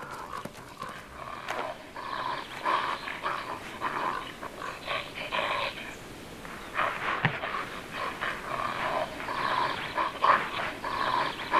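Young wolverines wrestling in the snow and calling, in a run of short, irregular bursts.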